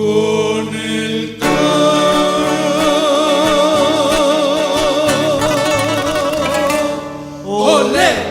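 A romantic guitar trio playing a song: voices hold a long sung note with vibrato over plucked guitars, ending in a quick guitar flourish near the end.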